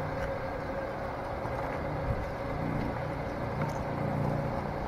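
The electric motor and gearbox of an RC scale crawler whining steadily as it drives slowly, pulling a loaded boat trailer.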